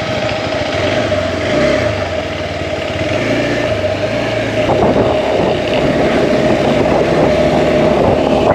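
Hero Xpulse 200's single-cylinder engine running under way, the revs rising and dipping between about one and three seconds in.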